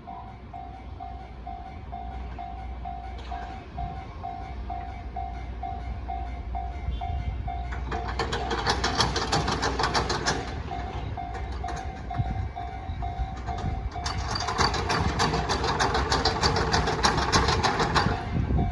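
Japanese level-crossing alarm ringing in an even, repeating ding while a train runs over the crossing with a low rumble. The clatter of the wheels grows loud twice, about eight seconds in and again from about fourteen seconds in.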